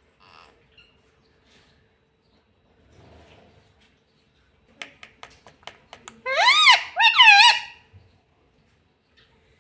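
A pet rose-ringed (ring-necked) parakeet makes a quick run of short clicks, then two loud, shrill calls back to back, each rising then falling in pitch.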